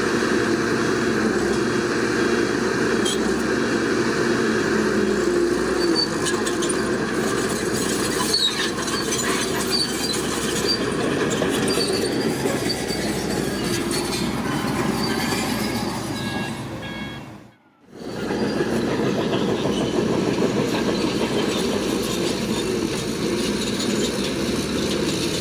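Crawler bulldozer working: its diesel engine running steadily with the clatter of its steel tracks. The sound cuts out briefly about two-thirds of the way through, then resumes.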